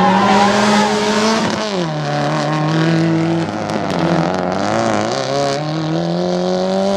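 Rally car engine at high revs on a gravel stage, dropping sharply in pitch about two seconds in, then climbing steadily as the car accelerates again, with tyres scrabbling on loose gravel.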